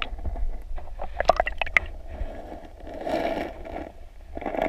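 Water splashing and gurgling around a kayak in a shallow pebbly river, with a quick cluster of sharp clicks about a second in and a swell of sloshing later on, over a steady low rumble.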